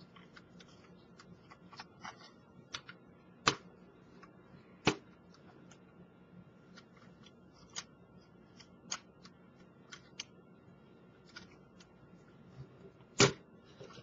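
A plastic LEGO truck model being handled and turned: scattered light clicks and taps, with sharper knocks about three and a half and five seconds in and again near the end, over a faint steady hum.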